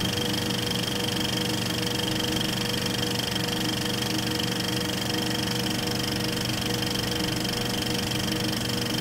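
A steady instrumental drone: several held tones over a hiss, unchanging throughout.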